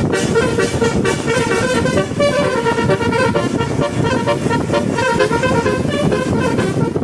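Bus-mounted 'basuri' musical air horn playing a fast melody of stepped horn notes, with a steady low rumble beneath.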